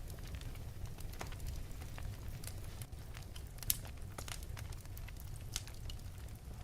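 Wood fire burning in an open fireplace: irregular sharp crackles and pops over a steady low rumble, with one louder pop a little past halfway.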